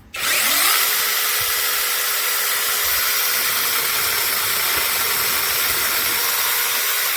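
Protmex cordless pole saw's brushless electric motor and chain starting with a quick rising whine, then running steadily at one speed.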